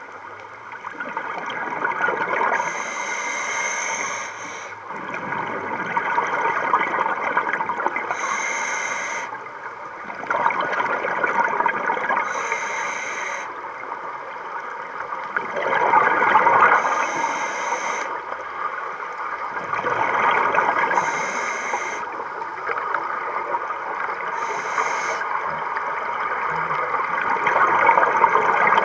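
Scuba regulator breathing underwater: a short hiss alternates with a bubbling rush of exhaled air, about one breath every four seconds.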